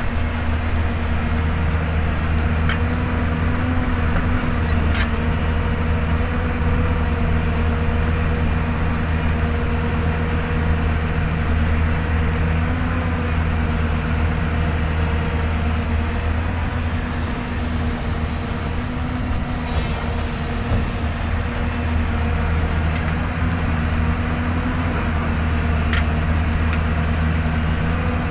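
Hyundai Robex 220-9S excavator's diesel engine running steadily under digging load. The low engine note dips briefly about two-thirds of the way through, and a few sharp clicks stand out.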